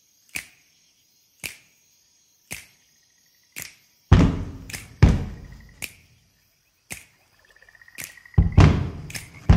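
Percussive hits: a sharp click about once a second, then from about four seconds in several heavy booming thuds with long ringing tails and a brief burst of rapid ticking.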